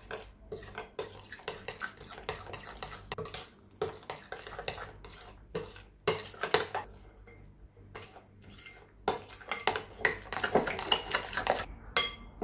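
Metal spoon stirring and scraping round a glass bowl, mixing yogurt and tandoori masala spice into a thick paste: quick clinks and scrapes in bursts with short pauses, busiest in the last few seconds.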